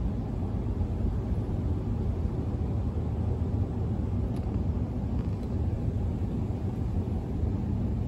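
Wind buffeting the microphone: a steady low rumble.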